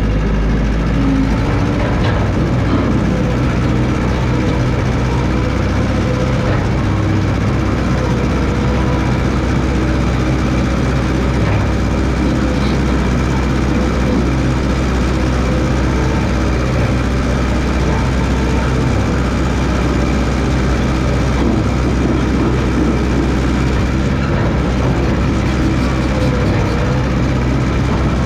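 1969 Massey Ferguson 300 crawler dozer's engine running steadily with a low, heavy hum while the machine works.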